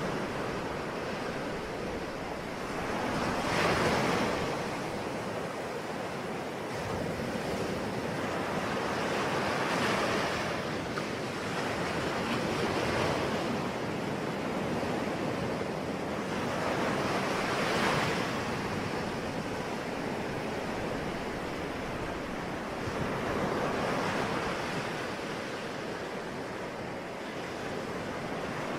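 Ocean waves breaking and washing on the shore, a continuous rushing surf that swells roughly every six or seven seconds.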